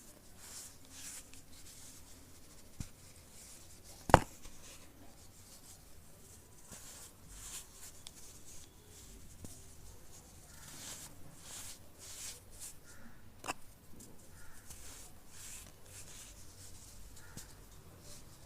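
Soft, scratchy crumbling of a compressed powder block being crushed, in repeated light swishes, with a sharp click about four seconds in and smaller ticks near three seconds and thirteen and a half seconds.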